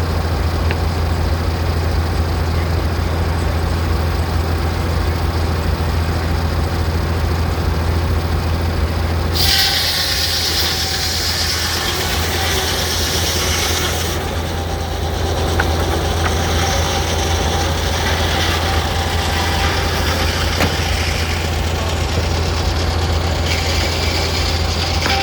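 A steam traction engine driving a Frick sawmill, running with a steady low drone. About ten seconds in, a loud high-pitched noise cuts in for some four seconds, carries on more faintly, and returns near the end.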